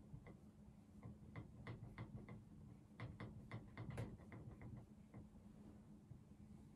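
Faint, irregular light clicks of a pen tapping on a writing surface as someone writes, about fifteen in the first five seconds, over a faint steady low hum.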